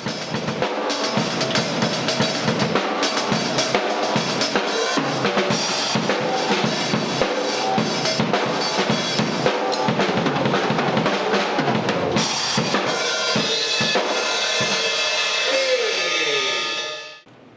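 Drum kit playing a dense, busy pattern of bass drum and snare strokes, fading out near the end.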